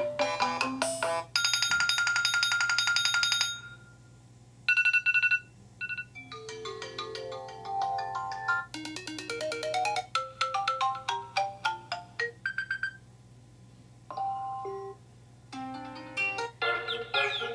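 A series of iOS 7 iPhone ringtones previewed one after another. Each is a different short melodic snippet that is cut off abruptly after a second or a few seconds as the next one is tapped.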